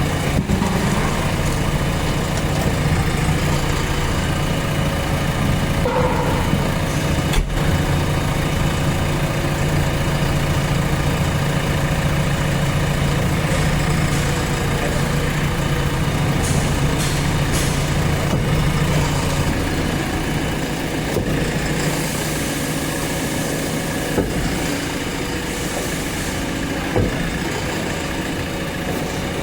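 Diesel engine of a JCB 3DX Plus backhoe loader running steadily, its note dropping and getting a little quieter about two-thirds of the way through.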